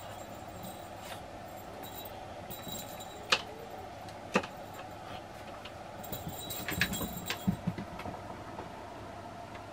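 A cat moving about on a hard laminate floor beside a crinkly fabric play tunnel: two single sharp clicks a second apart, then a short cluster of clicks, taps and soft thuds about six to eight seconds in, over a steady low hum.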